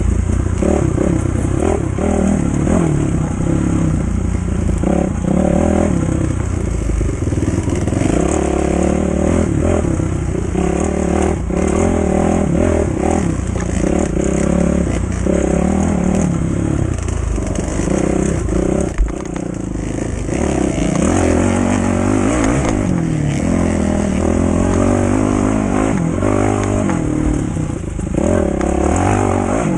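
Trail bike engine revving up and down continuously as it is ridden along a rough forest track, heard close up from the bike-mounted camera, with the bike clattering over the ground. A single sharp knock about two-thirds of the way through.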